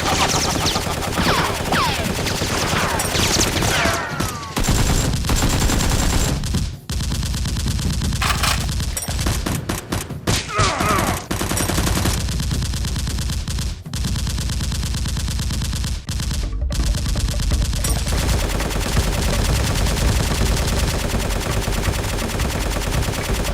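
Rapid, sustained automatic gunfire sound effects: dense streams of shots with a few short breaks, as in a staged firefight.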